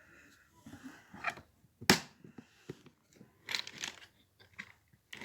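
Tools and small parts being handled and rummaged through in a toolbox: scattered clicks and rustling, with one sharp knock about two seconds in.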